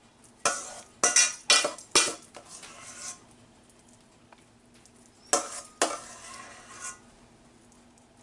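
Metal spoon scraping and clattering against a disposable aluminum foil pan while dolloping ricotta filling onto lasagna noodles. There is a quick run of four scrapes in the first two seconds, then two more about five seconds in.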